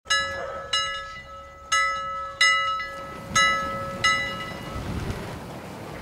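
Short intro jingle of six struck, bell-like notes, each ringing and fading out, spaced about two-thirds to one second apart; the last note dies away a little after four seconds in.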